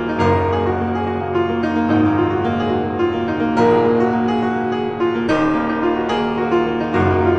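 Instrumental background music: slow, sustained chords over a low bass note, changing every second or two.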